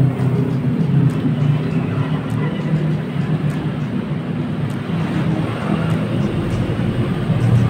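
Street traffic: motorbikes and cars passing on the road, a steady engine and tyre rumble.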